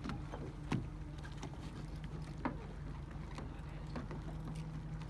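Motorboat engine idling steadily with a low hum, with a few sharp knocks scattered through.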